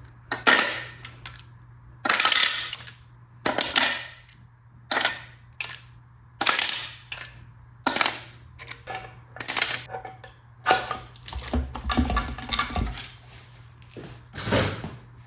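Metal tools and loose engine parts clinking and clattering in short bursts, roughly one a second, while the top end of a Ford 5.0 V8 is being taken apart. A low rumble comes in about three-quarters of the way through.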